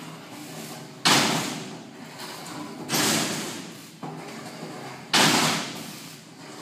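Steel slam door of a livestock weigh cage banging shut three times, about two seconds apart, each clang ringing out for about a second.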